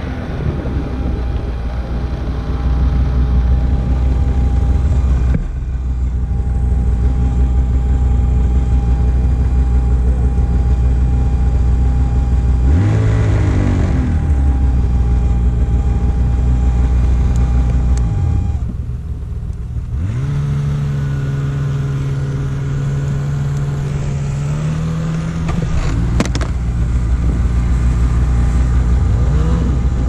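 2020 Polaris 850 Pro RMK snowmobile's two-stroke twin engine running under way, its note rising and falling with the throttle, with a steady whine over it for the first half or more. About two-thirds through it settles to a steadier, lower note for a few seconds, and near the end it revs again.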